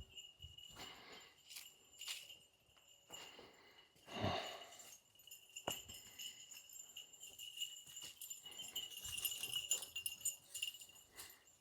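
Faint jingling of small bells on goats as they move along the trail, getting busier toward the end. There is a brief louder thump about four seconds in.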